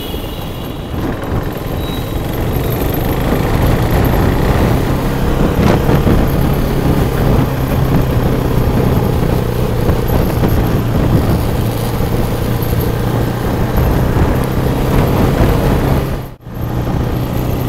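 Sport motorcycle's engine running steadily while riding along, with wind and road noise. The sound drops out for a moment near the end.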